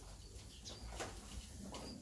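A flock of Köröser tumbler pigeons in a lull between bouts of cooing: only faint scattered clicks of beaks pecking grain on concrete, and a couple of short, faint high chirps.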